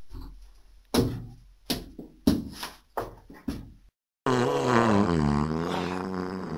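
Several knocks and thumps of someone climbing onto a wooden table, then from about four seconds in a long fart sound whose pitch wavers up and down.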